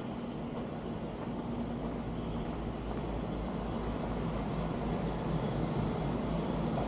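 Low engine rumble with a faint hum, steady and slowly growing louder.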